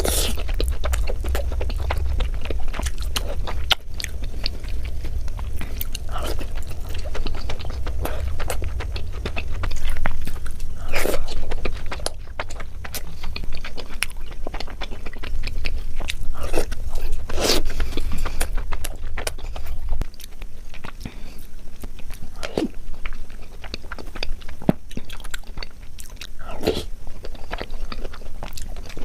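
A person eating Indian sweets close to the microphone: steady chewing with crunchy bites and wet mouth sounds, a few bites louder than the rest. A low hum underneath drops away about two-thirds of the way through.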